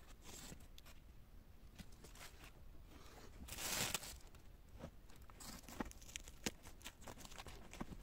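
Faint crinkling and rustling of a thin plastic bag being handled, louder for a moment about halfway through, followed by many small scattered crackles.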